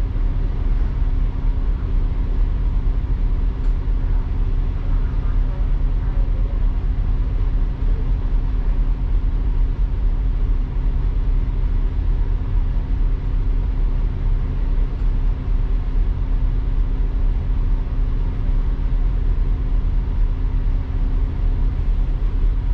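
Steady cabin drone of a double-decker bus, heard from the upper deck: low engine and road rumble with a constant hum, unchanging throughout.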